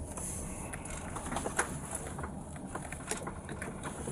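Police cruiser driving slowly, a steady low engine and road rumble picked up by its dashcam, with scattered light clicks.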